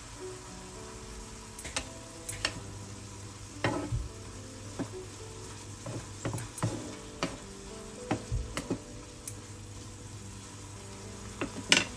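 Ground meat sizzling as it fries in a nonstick frying pan, stirred with a wooden spatula. The spatula knocks and scrapes against the pan many times, with the loudest knocks near the end.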